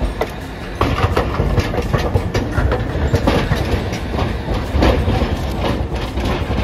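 Hiroden 800-series streetcar rolling through a tramway junction, its wheels clattering over the points and crossings in irregular clicks and knocks. The clatter gets louder about a second in.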